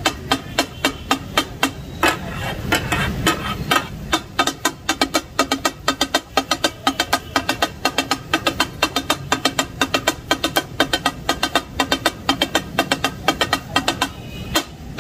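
Two flat steel takatak blades striking a flat iron griddle in a fast, even clatter of several strikes a second, chopping and mixing kidneys and testicles in sizzling gravy (gurda kapooray takatak). The clatter is at its thickest in the second half.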